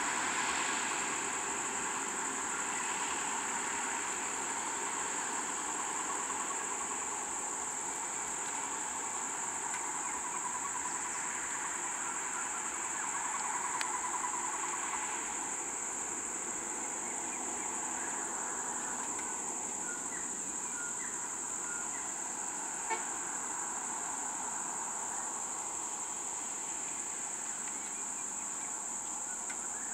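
A steady, high-pitched chorus of insects, with a low rumble of idling vehicles beneath it and a single short click past the middle.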